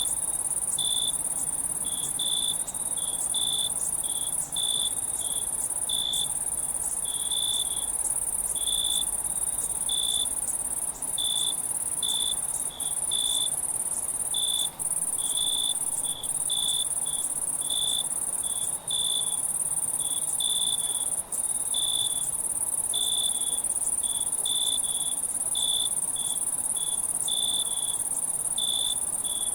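Night chorus of crickets chirping: a steady high, shrill trill with separate lower chirps coming about two a second at an uneven pace. The whole chorus drops out very briefly every few seconds.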